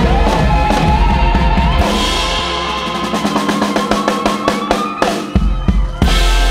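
Live band playing a blues-rock build: a harmonica holds long, wavering notes over banjo and electric guitar while the drums break into a roll that gets faster from about two seconds in, ending in a loud crash near the end.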